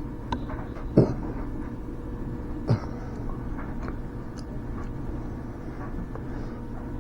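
Small smoke-test machine's pump running with a steady hum while it pressurises the fuel tank system with smoke. There are two brief knocks, about a second in and again near the three-second mark.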